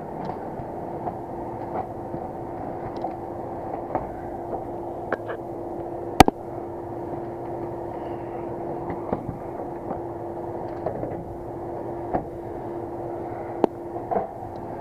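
Steady drone of running air-handling equipment with a constant hum tone, overlaid by scattered light clicks and knocks from a filter being handled and slid into place, with one sharp click about six seconds in.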